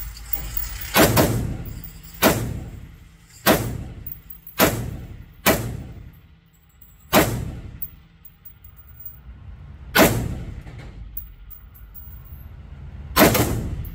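Daniel Defense DDM4V7 AR-15 rifle in 5.56 firing eight single shots at an uneven pace, a few quick ones early and then longer gaps. Each report echoes and dies away in the indoor range.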